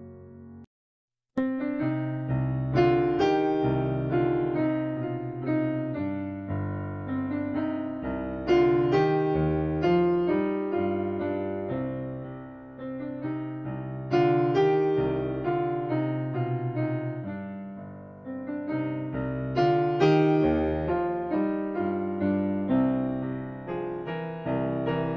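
Background piano music. One piece cuts off just after the start, and after a short silence a new piece begins, with struck notes that ring and fade.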